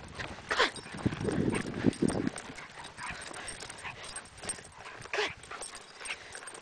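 Shiba Inu scuffling on grass as it chases its tail, with short dog vocal sounds and rapid footfalls. The louder bursts come in the first couple of seconds.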